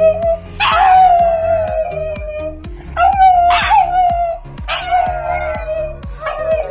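Two pugs howling: a string of long howls, each sliding down from a higher onset onto a held note for one to two seconds. Background music with a steady beat plays underneath.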